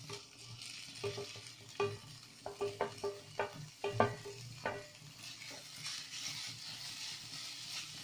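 A wooden spatula scrapes flaked fried fish off a steel plate into a hot pan, with a string of sharp knocks in the first half. From about five seconds in, the fish and vegetables sizzle in the oil as they are stirred.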